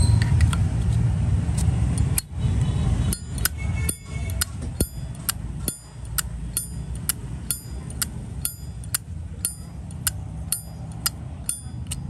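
Zippo lighter's lid being flicked open and snapped shut over and over, a rapid run of sharp metallic clicks and clinks about three a second from about three seconds in.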